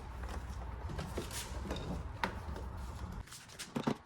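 Scattered light clicks and knocks of door parts and tools being handled during reassembly, over a low rumble that stops about three seconds in.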